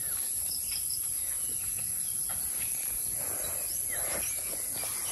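Steady high-pitched chorus of insects in tropical grassland, with brief brushy rustling of vegetation about three to four and a half seconds in.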